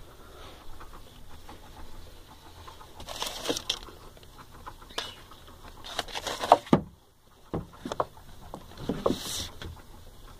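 Handling noise: scattered short knocks, clicks and rustles as the wooden record cabinet and the phone are moved about, with one sharp knock past the middle.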